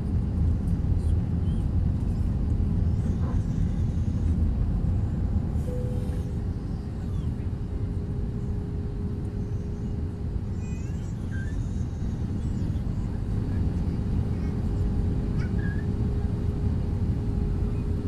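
Cabin noise inside an Airbus A320 descending on approach with flaps extended: a steady low rumble of engines and airflow, with a steady hum that grows a little stronger about a third of the way in.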